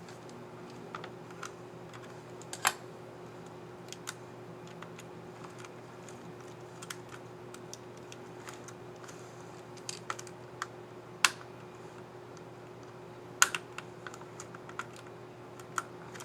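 Sparse, irregular plastic clicks from a laptop keyboard key being worked: the keycap and its scissor mechanism are handled and pressed, with a few sharper snaps, over a faint steady hum.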